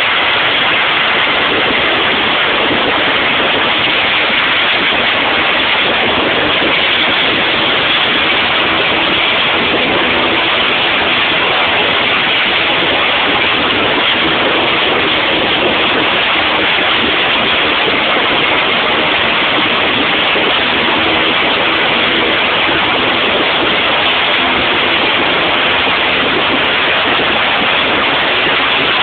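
Pratt & Whitney Canada PT6 turbine engine running at steady power during a ground run-up: a loud, constant rush that holds the same level and pitch throughout.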